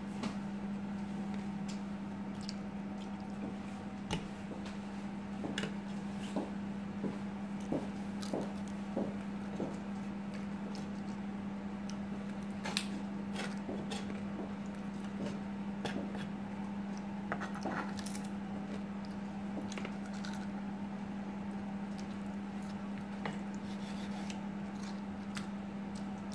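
Kitchen knife cutting through a raw salmon head on a wooden cutting board: scattered soft knocks and clicks of the blade and bone on the board, with wet squishing, over a steady low hum.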